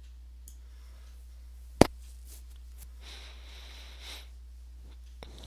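A single sharp computer-mouse click about two seconds in, over a steady low electrical hum, with a soft hiss around three to four seconds in and a faint second click near the end.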